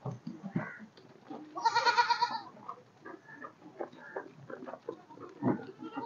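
A goat bleats once with a loud, quavering call about two seconds in, among scattered small knocks and shuffling from the pen.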